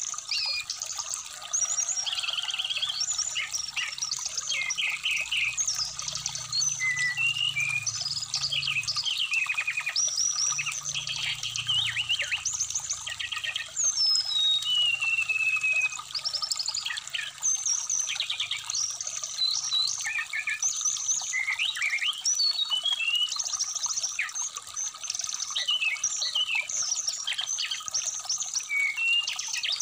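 Brown-chested jungle flycatcher (sikatan rimba dada coklat) singing a fast, varied run of chirps, whistles and sliding notes over the steady rush of a flowing stream.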